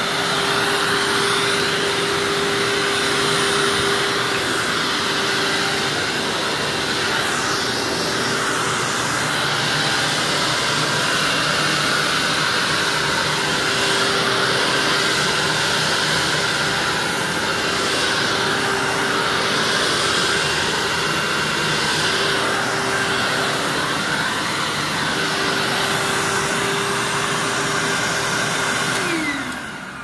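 Upright vacuum cleaner running, a steady motor whine and airflow rush that swell and ease every couple of seconds as it works. Near the end it is switched off and the motor winds down, its whine falling in pitch.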